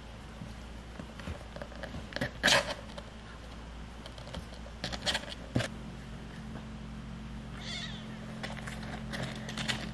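Young kittens mewing in a few short high calls, the loudest about two and a half seconds in and a fainter one near the end.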